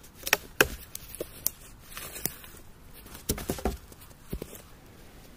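Footsteps crunching on snow and dry brush, with irregular sharp snaps of dead twigs, a few near the start and a cluster a little over three seconds in.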